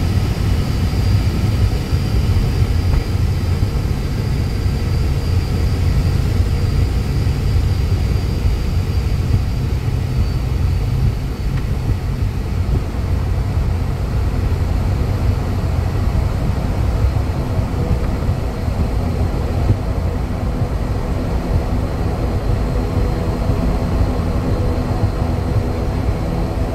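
Steady cabin noise of an ATR 72-500's turboprop engines and propellers heard in the cockpit: a deep, even rumble. A faint high whine sits over it at first and fades out before halfway, and from a little past halfway a set of steady mid-pitched tones grows stronger.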